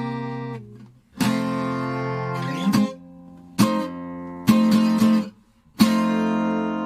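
Background music: a guitar strumming a handful of separate chords, the last one, near the end, left to ring and slowly fade.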